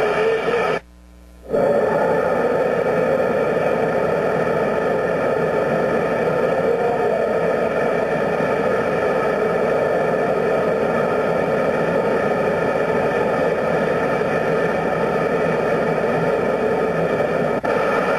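Steady roar of a ring-shaped gas burner heating a steam locomotive's steel driving-wheel tire to expand it for removal, with a brief cut-out about a second in.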